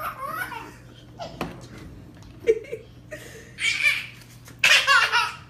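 A baby laughing in bursts, the heartiest laughs near the end, with a brief sharp sound about halfway.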